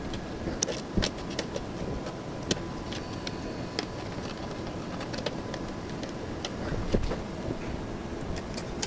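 Scattered light clicks and knocks from fitting a housing wall panel and driving its screws with a hand screwdriver, over a steady background hiss.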